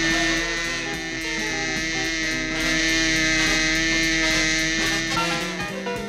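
Cartoon soundtrack music with long held notes; the music shifts to a new phrase shortly before the end.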